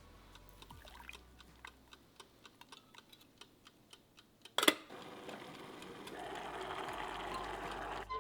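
Faint, even ticking of the electric steamer's mechanical dial timer, about four ticks a second. About halfway through comes a single sharp clunk, then a steady faint hiss.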